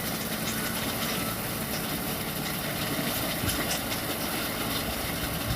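Rice thresher with built-in blower running steadily, a constant mechanical noise.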